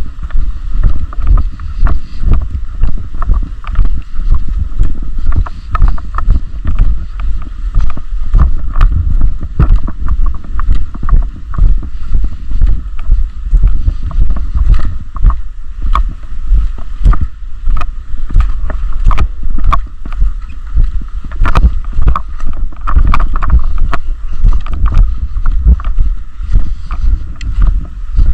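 Loud rumble and repeated knocks from a body-worn action camera being jolted and rubbed as its wearer moves, with wind on the microphone; the knocks pulse about twice a second.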